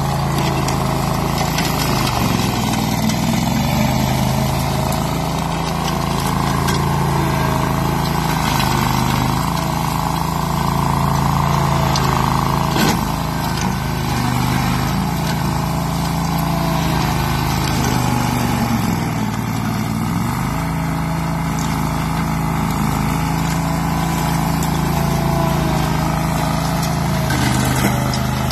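AS-Motor AS 830 Enduro ride-on brush mower's 14 hp engine running steadily under load while its blade mulches dense shrubs, the note dipping briefly a couple of times. A single sharp crack near the middle.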